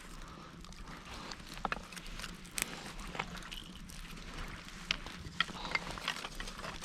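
Small newly lit kindling fire of dry twigs: scattered sharp snaps and crackles, a few per second at most, over a faint steady hiss.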